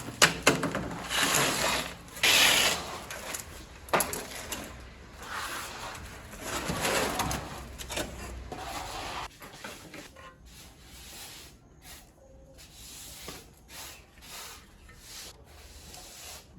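Hand-tool scraping and rubbing, with a few sharp clicks. It comes in louder swells for the first nine seconds or so, then turns to quieter, shorter strokes.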